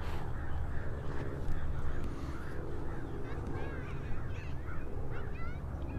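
Birds calling with many quick rising and falling chirps from about halfway through, over a steady low rumble.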